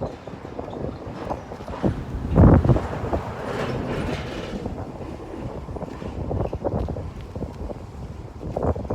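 Wind buffeting the microphone in uneven gusts, a low rumble with the strongest gust about two and a half seconds in.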